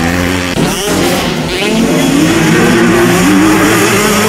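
Motocross bike engine revving hard. Its pitch drops sharply about half a second in, then climbs again and holds high under throttle.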